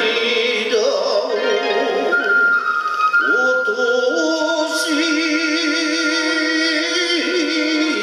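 Shigin poetry recitation: a man's voice chanting in long drawn-out notes that slide between pitches, holding one long note with a steady wavering vibrato through the second half, over musical accompaniment.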